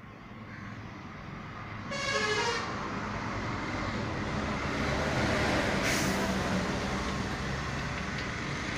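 Road traffic: a vehicle horn toots briefly about two seconds in, then the noise of passing vehicles grows louder and carries on.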